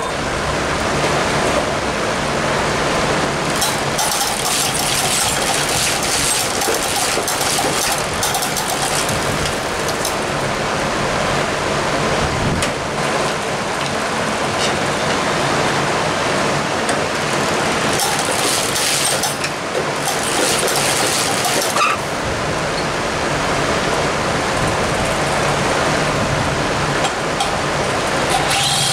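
Large drum fan running, a steady rushing of air that switches on just as the sound begins, with a few scattered light clicks and knocks over it.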